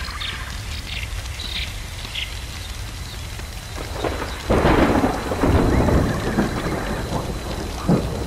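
Thunder rolling over a steady crackling hiss. It swells about four seconds in, is loudest for the next couple of seconds, then dies away, with a sharper crack near the end.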